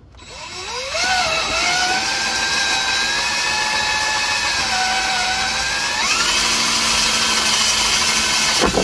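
Power drill with a spade bit boring through the wall of a plastic bin. The motor whine climbs in pitch as it spins up, holds steady, steps up higher about six seconds in, and stops just before the end as the bit breaks through.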